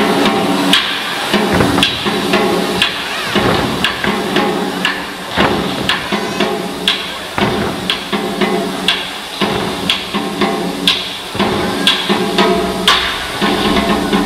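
Chinese lion-dance percussion: drum beats with clashing cymbals, about two strokes a second over a steady ringing.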